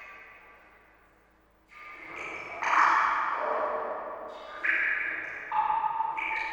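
Water drops falling into water, each a sudden ringing plink at its own pitch that fades away. After a quiet lull come about six drops at uneven intervals.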